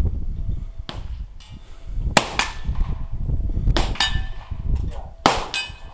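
Several .22 Long Rifle pistol shots along a silhouette firing line, sharp single cracks at uneven intervals, the loudest about two seconds in and again near the end. Some shots are followed by a brief high metallic ring.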